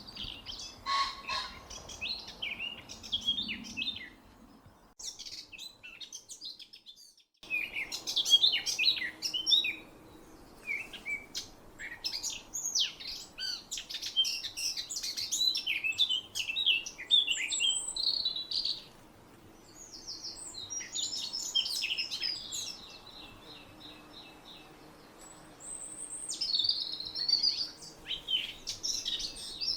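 Songbirds chirping and singing in quick, high-pitched phrases and trills, overlapping at times, with a brief break about five to seven seconds in.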